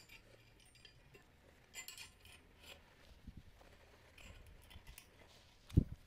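Scattered light clinks and taps as a black metal table-leg frame is handled and fitted against a wooden tabletop, with a dull thump near the end.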